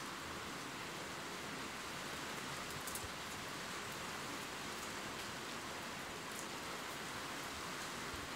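Steady rain ambience: an even hiss of falling rain, with a few faint, sharper drop ticks about three seconds in and again a little after six seconds.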